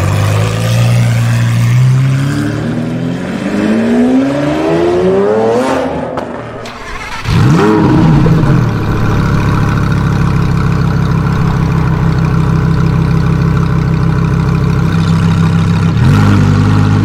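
Lamborghini Aventador SVJ's V12 accelerating away, its pitch climbing steadily for about six seconds before the sound falls off. Then a Lamborghini Huracán Performante's V10 starts with a sharp flare of revs, settles into a steady idle, and is blipped once near the end.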